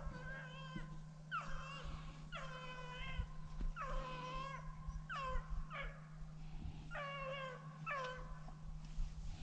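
Rabbit hounds baying on a trail: a string of about eight short, high yelping calls, each sliding down in pitch, over a steady low hum.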